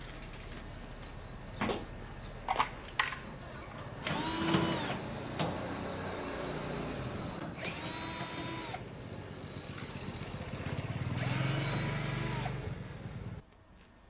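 Cordless drill-driver whirring in three short runs, each spinning up and then holding its pitch, as it backs out the screws of an air-conditioner outdoor unit's cover. A few sharp metal clicks come first.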